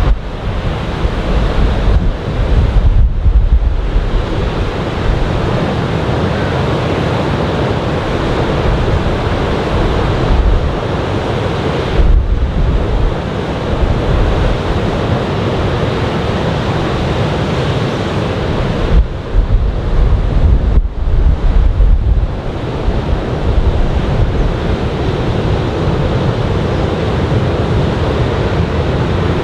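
Steady rush of surf from a typhoon swell breaking on a sandy beach. Several times, gusts of wind buffet the microphone with a low rumble.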